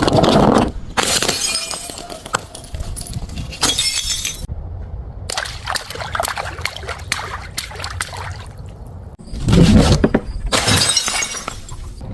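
Glass bottles smashing one after another: several loud shattering breaks, with scattered clinks and crunches of broken glass between them.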